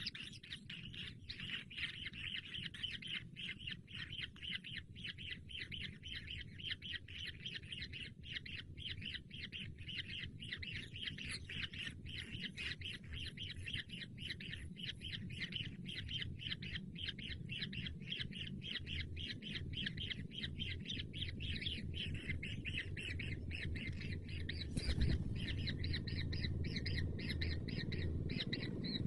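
Kingfisher chicks calling in a rapid, continuous stream of short high chirps. The calls grow louder toward the end.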